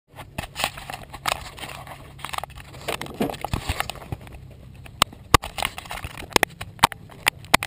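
Scattered sharp clicks and knocks, the handling noise of a camera inside an open glider cockpit, over a low steady hum.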